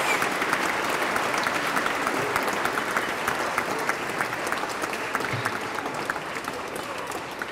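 Audience applauding, a dense patter of many hands clapping that gradually fades.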